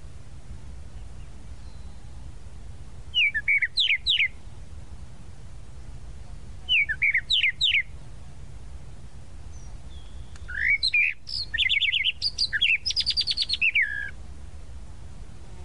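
Tropical mockingbird singing in separate phrases of quick whistled notes: a short phrase given twice, then a longer, varied phrase with a rapid trill near its end.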